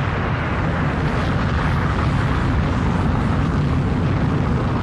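Space Shuttle main engines firing on the launch pad during a main engine test: a steady, loud rocket-exhaust roar.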